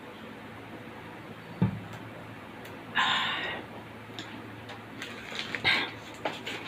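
Scattered small clicks and taps, with a short rustling noise about three seconds in and a low thump just before that.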